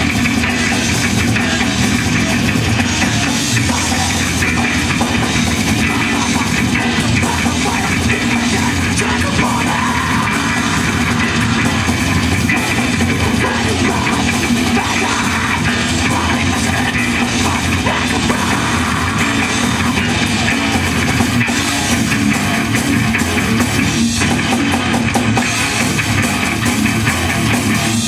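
Death metal band playing live: distorted electric guitar and bass over a drum kit, loud and dense without a break.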